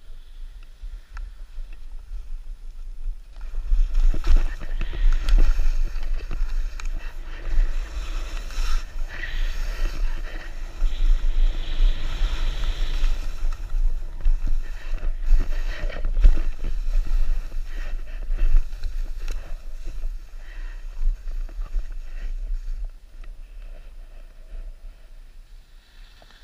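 Skis hissing and scraping over soft snow on a downhill run, with wind buffeting the camera's microphone as a deep rumble. It grows louder a few seconds in as speed builds and eases off near the end.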